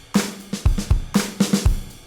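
Recorded drum kit groove playing back: kick drum, snare and cymbal hits in a steady rhythm, with the strongest strikes about twice a second.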